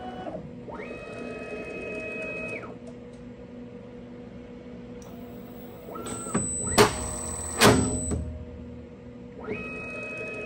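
CNC router's stepper-driven axes whining as the spindle travels to the automatic tool changer magazine. About six seconds in, the spindle spins up with a high whine and screws onto the collet nut held in the magazine, with two loud sharp bursts. Near the end the axes whine again as the spindle moves.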